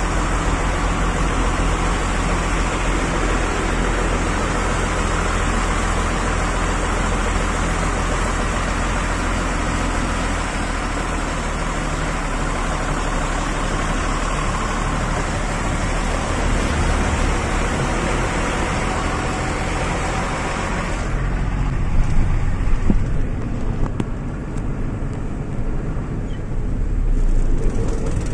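A moving vehicle's road noise heard from inside: a steady engine rumble and a dense tyre hiss on wet road. About three quarters of the way through, the hiss drops away, leaving a lower, uneven rumble with a few knocks.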